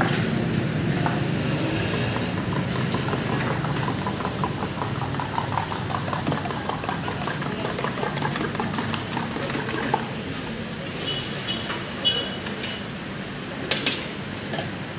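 Egg mixture sizzling and crackling on a hot flat steel griddle over a steady low rumble. A few light metal spatula scrapes and taps come near the end.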